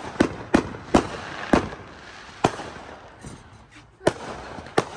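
Aerial fireworks bursting overhead: a string of about seven sharp bangs at uneven intervals, with a crackling haze between them.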